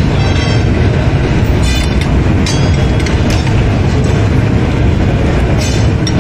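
Heavy metalworking machinery running with a loud, steady rumble, with short metallic squeals a few times.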